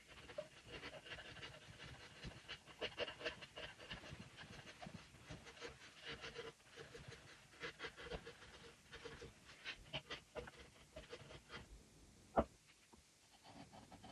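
Hand-pushed carving chisel paring wood: a quick run of short scraping cuts, with one sharp knock about twelve seconds in.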